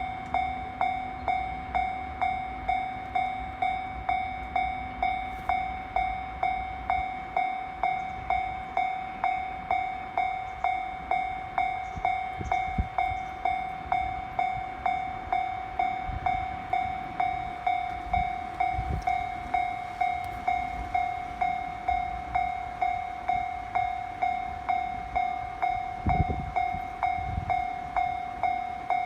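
Japanese railway level-crossing warning bell ringing in an even, repeating electronic ding, a little under two strokes a second, signalling that a train is approaching or passing.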